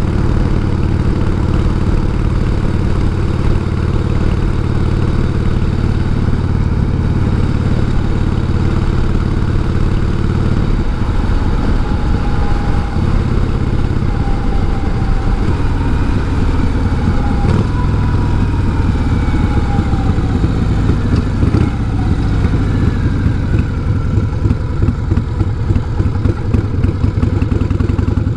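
1988 Harley-Davidson Heritage Softail's 1340 cc Evolution V-twin running under way with a sidecar attached. It holds a steady note for about ten seconds, then the note changes and turns rougher and more uneven. A faint higher tone slides up and down midway.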